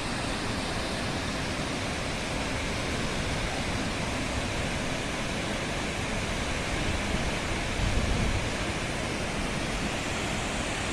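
Waterfall rushing steadily, a dense even roar of falling water, briefly stronger in the low end about eight seconds in.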